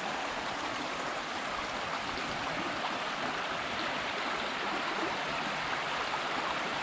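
Steady rushing of Grubb Run, a small stream flowing through a culvert.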